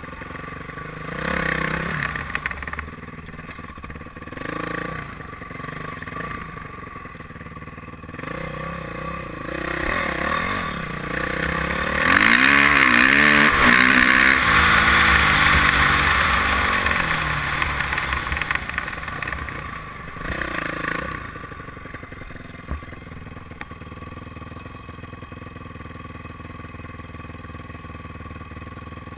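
Honda dirt bike engine under a riding rider, revving in short throttle bursts, then held on hard for several seconds with its pitch rising and falling, before settling to a lower steady run for the last third.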